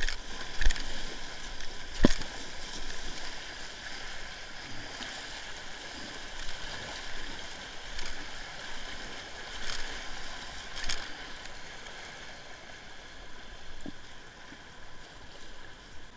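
River rapid rushing and splashing around a whitewater kayak being paddled through it, with sharp splashes every few seconds, the loudest two in the first couple of seconds. The water noise dies down near the end.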